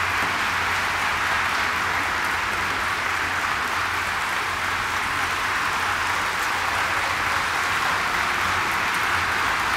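A large audience applauding steadily, an even wash of clapping without a break.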